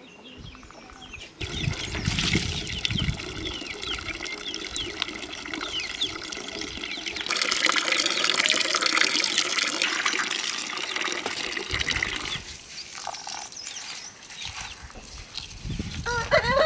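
Water running and splashing, louder for several seconds in the middle.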